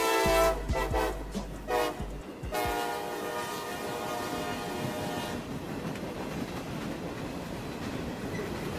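CSX freight locomotive sounding its air horn for the grade crossing: a blast ending about half a second in, two short blasts, then a longer blast of nearly three seconds. After that the freight cars roll past with steady wheel-on-rail rumble.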